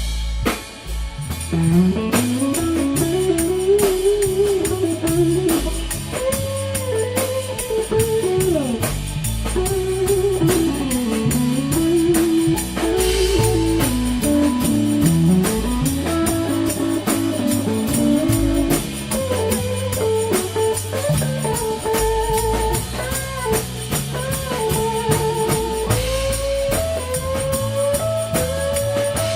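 Live blues band playing an instrumental break: a lead guitar solo of bent, sliding notes over bass and drums.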